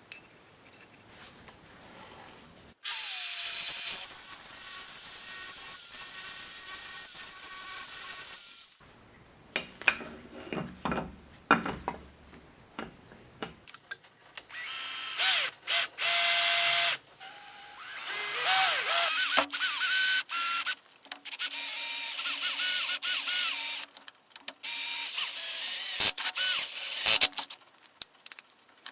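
Electric power tool, such as a drill, running in several separate bursts of a few seconds each with a high-pitched whine, its pitch sliding as the motor spins up and winds down. Clicks and handling knocks fill the gaps between runs.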